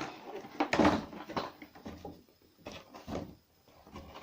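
Cardboard collection box and its plastic insert being handled and pulled open, a run of irregular scrapes, rustles and knocks, the loudest about a second in; the contents are wedged in tightly.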